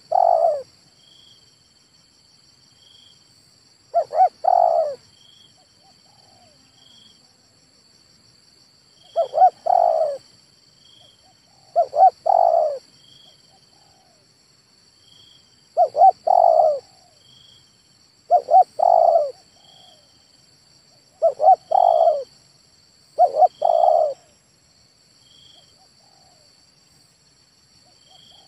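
Male spotted dove cooing about eight times, every few seconds. Each phrase is a couple of quick short notes followed by a longer coo.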